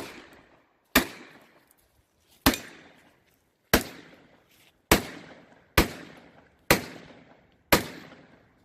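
Pistol shots fired at a deliberate pace: eight sharp reports about a second apart, each followed by a short echoing tail.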